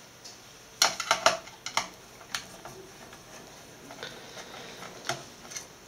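Small metallic clicks and taps at irregular intervals, a cluster of them about a second in: screws and a screwdriver being handled on the sheet-metal shield of an all-in-one PC being taken apart.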